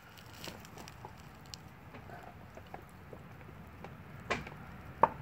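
A young Blue Bay Shepherd gnawing on a frozen-solid deer leg: faint scattered clicks of teeth on bone, with two louder sharp cracks near the end.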